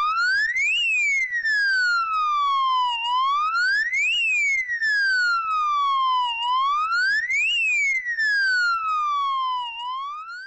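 ANIDERS animal-repellent device's alarm siren wailing, set off when its sensors detect an animal intrusion. Each cycle the pitch rises quickly over about a second, then falls slowly over a couple of seconds, repeating about every three seconds.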